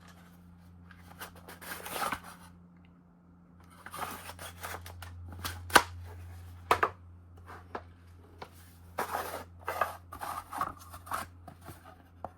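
Wooden watchmaker's parts boxes being handled: irregular sharp clicks and knocks mixed with stretches of rustling.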